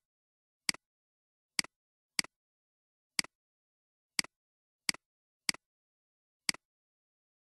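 Computer mouse clicks: eight single clicks at an uneven pace of about one a second, each a sharp press followed at once by a softer release, with dead silence between.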